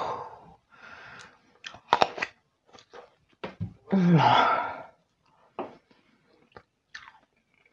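Close-miked eating sounds: a woman chewing a sushi roll, with wet lip smacks and mouth clicks. About four seconds in comes a loud, breathy groan that falls in pitch.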